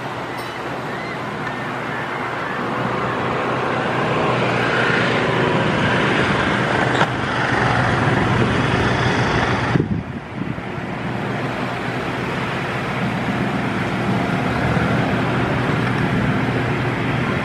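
Road traffic noise: a steady hiss of passing vehicles that swells over the first several seconds, with a single sharp click about seven seconds in, then drops away abruptly just before ten seconds and settles back to a lower steady rush.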